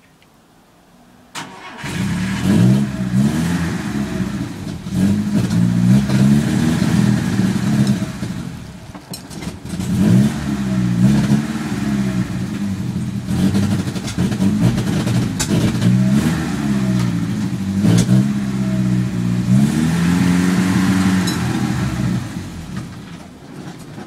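Engine of a WWII M29 Weasel tracked vehicle starting about two seconds in, then running with the revs repeatedly rising and falling, dropping back near the end.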